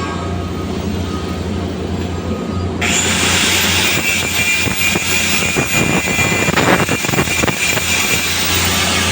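Welding arc struck about three seconds in, giving a loud, steady hiss with crackling, over a steady low hum.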